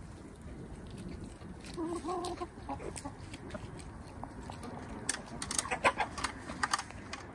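Hens clucking while they forage, with one drawn-out hen call about two seconds in. In the second half comes a run of sharp clicks and taps, the loudest sounds.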